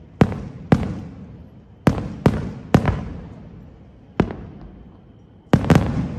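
Aerial firework shells bursting: about eight sharp bangs at uneven intervals, several coming in quick pairs, each trailing off in a long echo.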